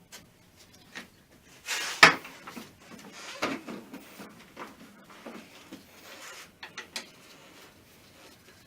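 Irregular knocks, clicks and clatter of parts and tools being handled during work on a car starter motor, with one sharp knock about two seconds in.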